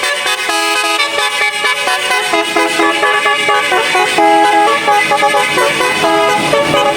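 Telolet musical bus horns: several pitched horn tones sounding together and jumping from note to note in quick steps, playing a tune.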